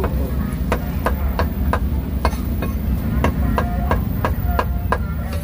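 Meat cleaver chopping roast pork and offal on a thick round wooden chopping block, sharp chops at about three a second.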